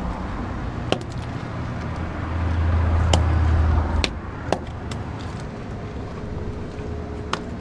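Steady low traffic rumble that swells between about two and four seconds in as a vehicle goes by. A few sharp clicks come from encrusted stone and dirt being broken off a rusty find and dropping onto concrete.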